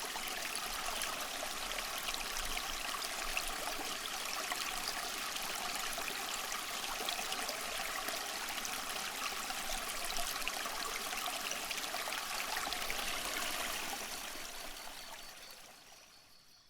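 Stream water flowing and trickling steadily, fading out over the last few seconds.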